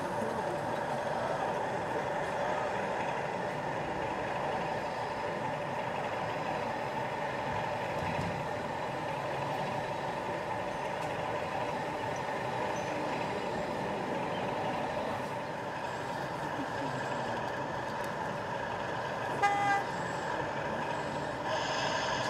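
DCC sound of an OO gauge model diesel locomotive: a recorded diesel engine running steadily from the model's small speaker, with one short horn toot near the end.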